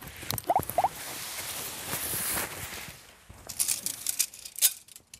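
Tent fabric rustling steadily as it is spread and handled, then a run of light clicks and clacks as the sections of shock-corded tent poles are snapped together.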